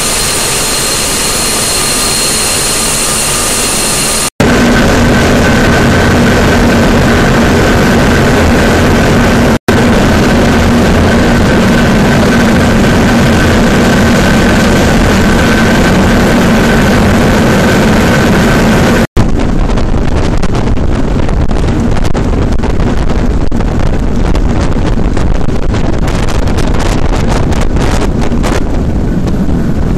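Gas turbine whining steadily in the engine room of a turbine-powered motor yacht driven by water jets. After a cut, the yacht is running at speed with a steady machinery hum and the rush of water. From about two-thirds of the way in, wind buffets the microphone on deck.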